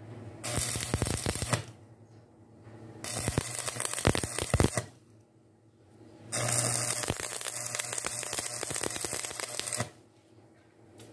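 Stick welding arc crackling as the electrode burns on steel bar, in three runs: a short one about half a second in, another about three seconds in, and a longer one of about three and a half seconds starting about six seconds in, with pauses between.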